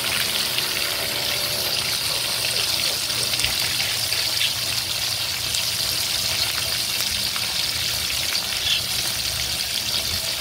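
Whole fish deep-frying in hot oil in a wok: steady sizzling with fine crackling.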